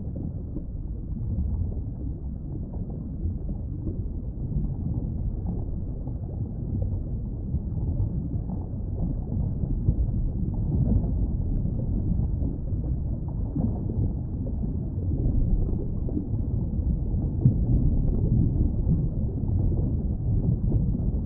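Steady low rumble of underwater ambience, with no manatee calls heard.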